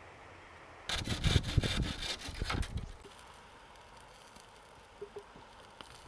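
Bamboo poles knocking and rubbing against each other as they are handled, a burst of clatter starting about a second in and lasting about two seconds.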